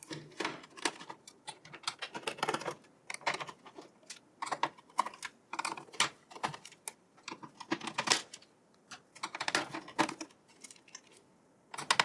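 Screwdriver backing out the screws that hold a desktop PC's motherboard to its steel case: irregular runs of small sharp clicks and metal ticks as the screws turn and are picked out.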